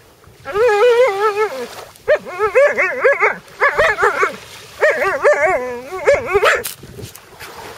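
Alaskan Malamute singing in a string of about five drawn-out, wavering calls, the pitch sliding up and down within each one.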